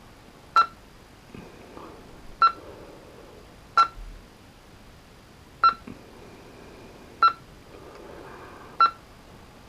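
Kenwood TS-430S transceiver stepping up through its bands: six short, sharp beep-like clicks, about one every one and a half to two seconds, as the receiver filter relays switch band group by band group. The relays are being cycled with 13.8 V fed through the antenna terminal to burn oxidation off their contacts.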